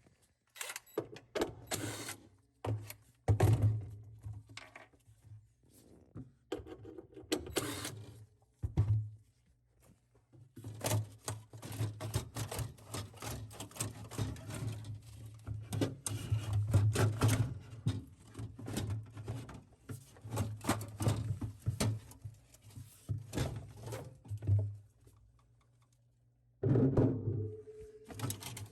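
Plastic refrigerator panel and tools knocking, clicking and scraping as a cover inside the fresh food compartment is unscrewed and pulled off. The knocks come irregularly, with a low hum under the busier stretches.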